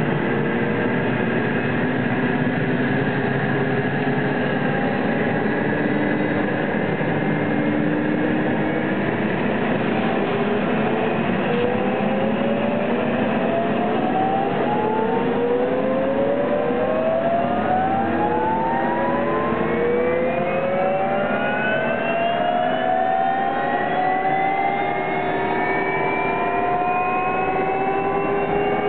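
Police helicopter's turbine engine starting up: a steady rushing noise, with several whining tones that rise in pitch from about ten seconds in as the engine spools up.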